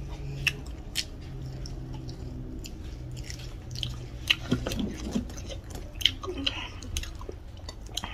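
Close-up eating sounds: a person chewing a mouthful of rice and chicken curry, with many short sharp mouth clicks and smacks.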